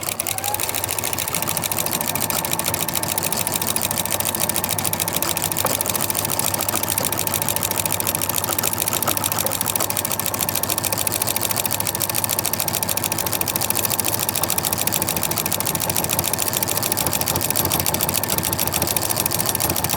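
Electric household sewing machine running steadily at speed, its needle stitching a cross stitch in a rapid, even rhythm, sewing smoothly now that the thread jam in the bobbin case has been cleared.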